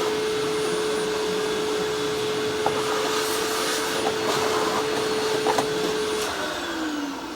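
Vacuum cleaner running with a steady motor whine while vacuuming dirt out of an opened upright vacuum's housing, with a few clicks and rattles as bits are sucked up. About six seconds in the whine drops in pitch as the motor winds down.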